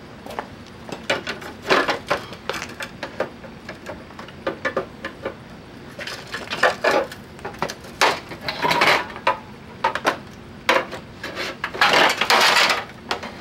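Metal parts of a scrap window air conditioner being pried apart with a pry bar: irregular clanks, rattles and scrapes of sheet metal and tools, coming in several bunches, the busiest near the end.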